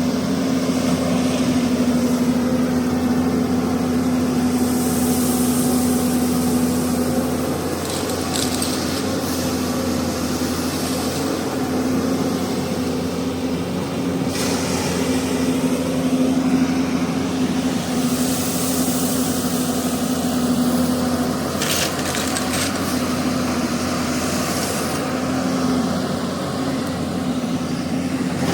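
Hyundai 215 excavator's diesel engine running steadily under working load, its pitch dipping a little mid-way, with intermittent hissing and a few sharp knocks.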